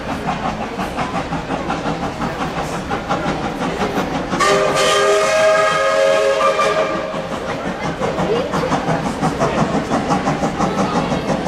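Queensland Rail BB18¼ class steam locomotive 1079 working past with a steady, rapid rhythm of exhaust beats. About four seconds in, its steam whistle sounds once, a steady blast of several tones together lasting about two and a half seconds.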